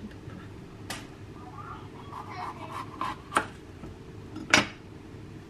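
Knife and bell pepper knocking on a cutting board during chopping: a few sharp knocks, the loudest about four and a half seconds in, with light rustling in between.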